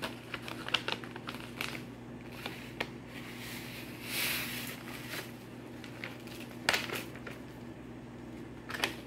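A pouch of instant mashed potato flakes crinkling and clicking as it is handled. About four seconds in there is a brief soft hiss as the dry flakes pour out of the pouch into a pot.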